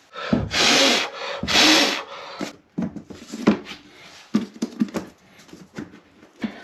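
Vinyl floor planks being handled and worked into place: two loud scraping rubs in the first two seconds, then a run of light knocks and clicks as the planks are pressed together to close the gaps.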